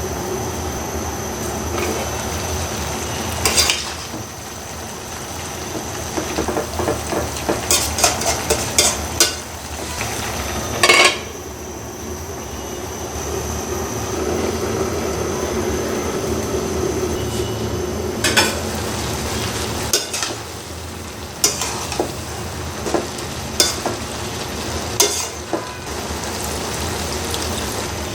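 Malabar spinach and lentil chorchori sizzling in a pan while it is stirred with a metal spatula, which clinks and scrapes against the pan a dozen or so times.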